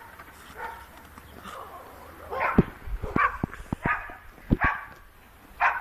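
A small dog barking in short, high yips, about five of them starting about two seconds in, with sharp knocks among them.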